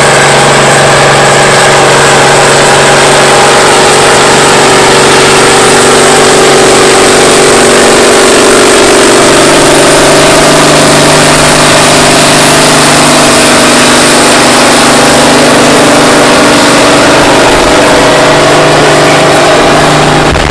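John Deere 7700 tractor's six-cylinder diesel engine running under load as it drags a weight-transfer pulling sled: loud and steady, its pitch shifting slightly about halfway through.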